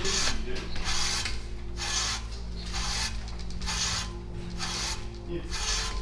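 Hand-turned facing cutter scraping the paint out of a bearing bore in a painted trike frame, one rasping stroke about every second as the handle is turned.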